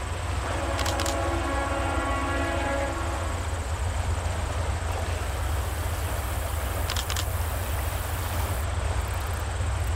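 Leslie RS3L three-chime air horn on a GE Dash 8-40CW locomotive sounding a held chord that ends about three seconds in, over a steady low rumble.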